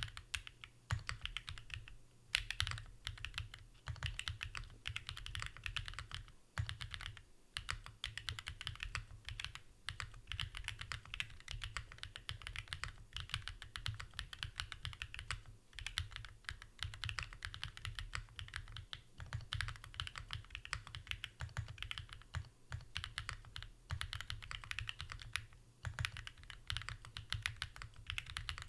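Continuous fast typing on a Haven65 mechanical keyboard, a leaf-spring gasket-mounted board with an aluminium plate, plate and case foam, Designer Studio Starry switches and GMK Shoko keycaps. Rapid key presses and returns with a deep thud under each stroke, pausing briefly a few times.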